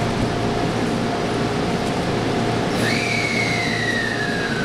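Steady hum of a JR West 223 series electric train standing at a station platform. About three seconds in, a high whining tone starts and slides slowly downward.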